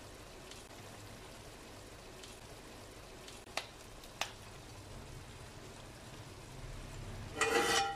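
Chana pulao simmering in an aluminium pot on a gas stove, a faint steady bubbling as its liquid cooks down. Two light clicks come in the middle, and a short, louder metallic clatter comes near the end.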